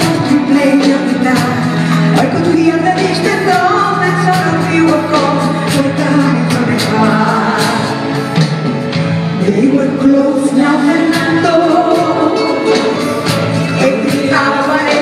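Live band with drums and keyboards backing a woman singing a song into a microphone, with steady percussion and held sung notes.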